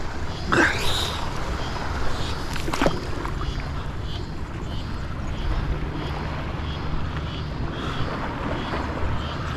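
Steady wind noise on the microphone over a low rumble, broken by a brief rising squeak about half a second in and a sharp click near three seconds.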